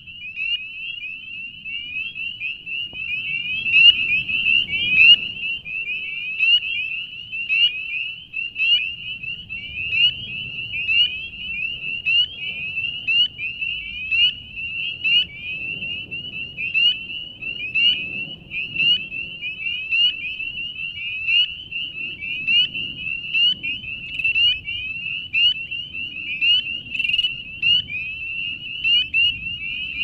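Dense chorus of spring peepers: many overlapping short, high, rising peeps from calling males, unbroken, with a faint low rumble underneath.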